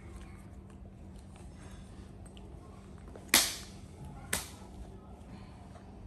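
Two sharp hand claps about a second apart, the first louder than the second.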